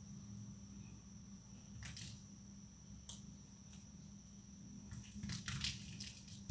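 Thin plates of dried leftover soap cracking and snapping: a couple of single sharp cracks, then a quick cluster of crackling breaks near the end.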